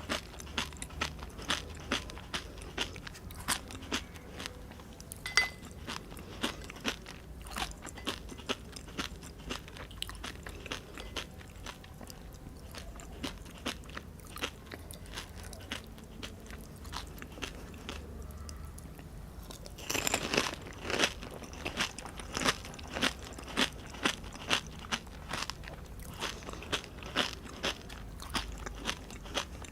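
Close-miked crunching and chewing of pani puri: the crisp, hollow fried puri shells crackle with sharp clicks a few times a second. The crunching thins out for a while in the middle, then a fresh bite about twenty seconds in gives a dense, loud burst of crackling.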